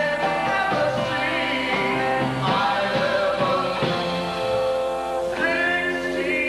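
A live band playing 1950s-style rock and roll, with a man singing into a handheld microphone.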